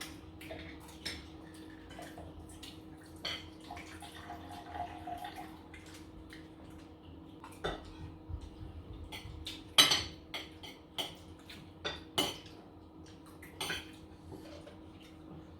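Cutlery clinking and scraping on plates during a meal of rice and chicken, in scattered irregular clinks with the sharpest one about ten seconds in.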